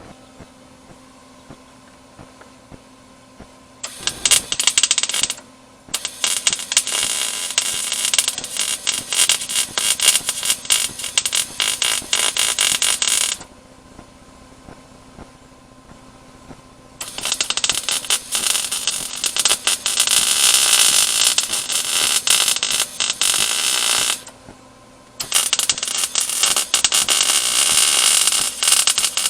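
Electric welder laying crackling, sputtering weld runs on sheet-metal body panels, in four runs with short pauses between them, the longest about seven seconds. A faint steady hum sits under the pauses.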